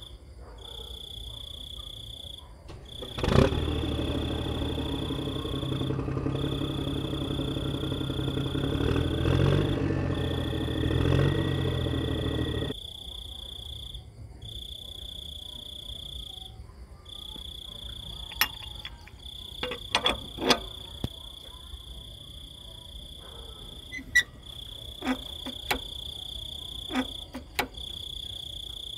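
A small toy-tractor electric motor starts with a click about three seconds in, runs for about nine seconds with a rising whine, and cuts off suddenly. Steady high insect chirping runs underneath, and a few light clicks and knocks come in the second half.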